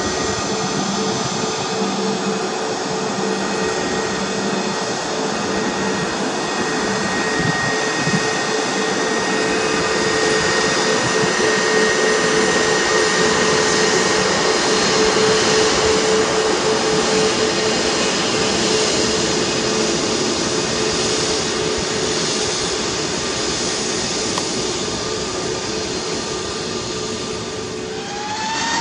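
Airbus A321neo's CFM LEAP-1A turbofans running at taxi power: a steady jet whine over a broad rush. Right at the end the whine begins to rise as the engines start to spool up for takeoff.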